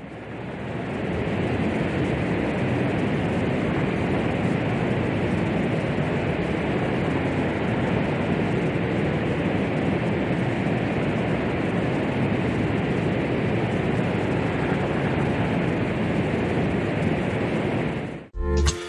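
A steady, even rushing noise with no clear pitch. It fades in over the first second or two and cuts off abruptly just before the end, where strummed guitar music starts.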